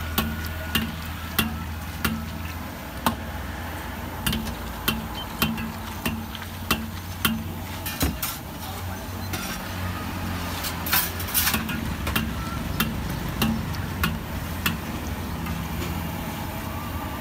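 Long steel ladle stirring sweet potato balls in a wok of hot oil, clinking against the steel wok in repeated sharp knocks roughly every half second. Under the knocks are the sizzle of deep-frying and a low steady hum.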